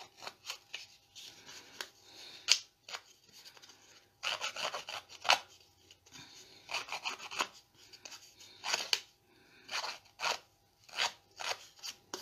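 A handheld paper distresser tool scraped along the edge of kraft cardstock in short, irregular strokes, each pass a dry rasping scrape that roughens and frays the paper edge.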